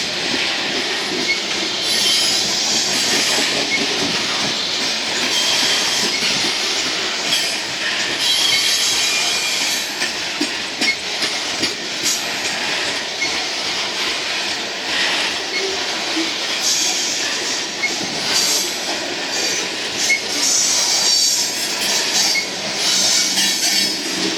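Loaded coal cars rolling past on the rails, wheels squealing in high, wavering tones, with irregular clacks and knocks from the wheels and couplers.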